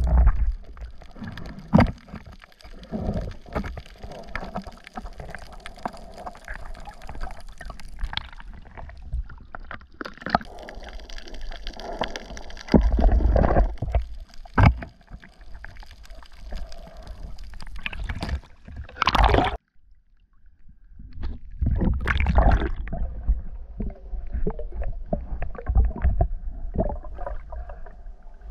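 Water gurgling and sloshing around a camera moving underwater, with irregular knocks and low rumbles and a short break in the sound about two-thirds of the way through.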